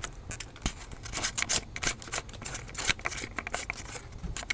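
Close handling noise: a quick, irregular run of scratchy clicks and rustles as the camera or phone is fumbled.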